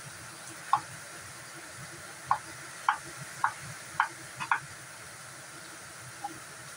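Kitchen knife cutting potato on a wooden chopping board: short sharp knocks of the blade on the board, one about a second in, then six more about every half second from two seconds in.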